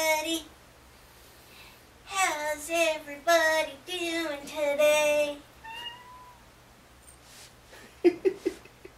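A woman's voice singing a run of five meow-like notes, one after another, between about two and five seconds in. A few soft knocks follow near the end.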